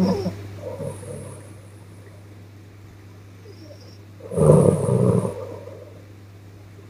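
A sleeping woman snoring softly: a shorter breath noise at the very start, then a fuller rattling snore about four and a half seconds in that lasts about a second. A steady low hum runs underneath.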